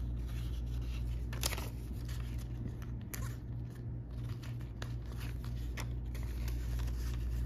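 Crinkling and rustling of a clear plastic binder pouch and a paper banknote as a bill is slipped into the pouch, with a few sharper clicks along the way.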